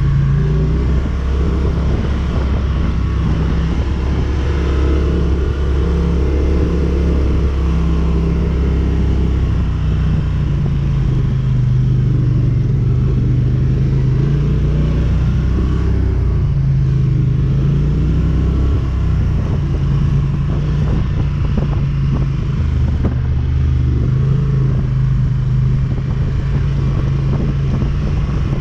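ATV engine running while riding, its pitch rising and falling several times with the throttle.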